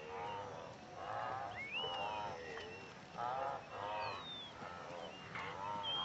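A wildebeest herd calling: a run of short grunting calls from several animals, roughly one a second, with a few thin whistled bird notes sliding in pitch over them.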